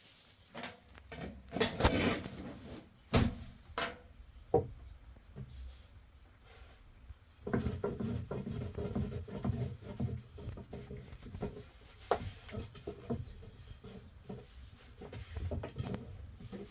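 Irregular knocks and clatter of objects being handled, a few sharp ones in the first seconds, then a busier run of small knocks and rustling from about halfway through.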